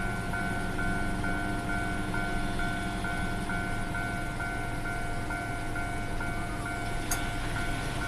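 Japanese railway level-crossing warning bell ringing steadily with evenly repeated electronic dings, about two a second, over a steady low rumble. A brief click comes about seven seconds in.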